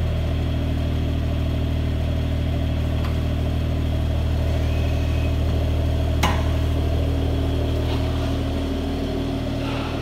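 2019 Mercedes-AMG CLS 53's turbocharged 3.0-litre inline-six idling steadily through its valved exhaust, with a single sharp click a little past the middle.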